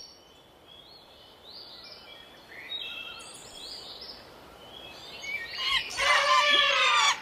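Cartoon jungle ambience of birds chirping and tweeting: short, quiet chirps at first, then a louder, longer run of warbling calls near the end.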